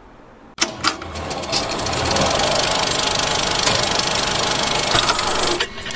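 Film-projector sound effect: a fast, even mechanical clatter that starts with a few clicks about half a second in and cuts off shortly before the end.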